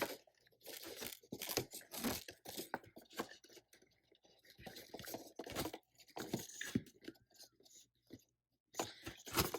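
Paper rustling and crinkling as sheets are handled, with the crunch of a stapler driving staples through a thick stack of paper tail feathers. The clicks and rustles come irregularly, with a short pause near the end.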